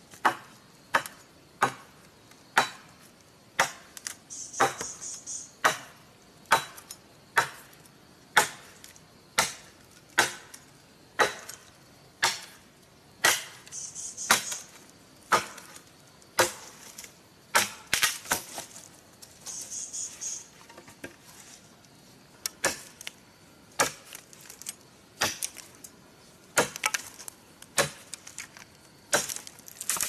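Machete chopping a wooden pole: sharp, even blows about once a second, with a short pause about two-thirds through.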